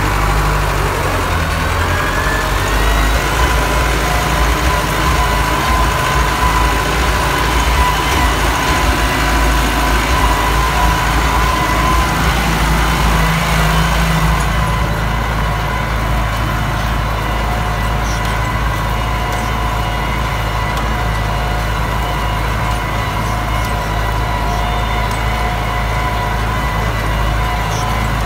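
IMT 577 tractor's diesel engine running steadily under load as it pulls a V28 disc harrow, heard from the driver's seat, with a steady high whine over the low engine drone.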